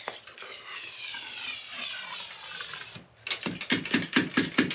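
Ramrod scraping as it slides down the barrel of a 20-gauge flintlock muzzleloader, pushing a thin cardboard wad down onto the shot. Over the last second and a half the rod is tapped on the load in a quick series of knocks, about four a second, to seat it.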